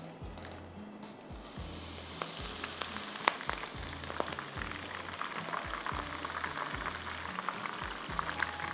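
Spinach leaves deep-frying in a pan of hot oil, a steady sizzle with scattered crackles, being fried until crisp. The sizzle grows louder about a second in.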